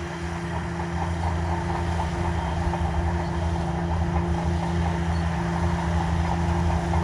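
Excavator running steadily, giving an even mechanical hum with a low rumble that grows slightly louder.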